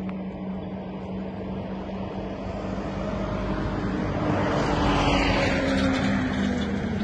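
A steady motor hum with a constant low tone. It swells louder with falling pitch just past the middle, then eases off near the end, like a machine passing close by.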